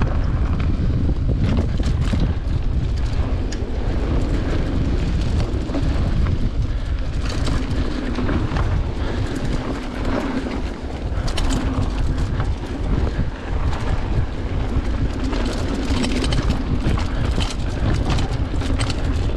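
Mountain bike riding down a dirt singletrack: steady wind buffeting the microphone, with tyres rolling over dirt and the bike rattling and clicking over roots and rocks.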